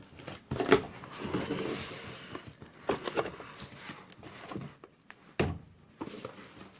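Chainsaw kit parts being taken out of their box: packaging rustling, with a few knocks as items are lifted and set down.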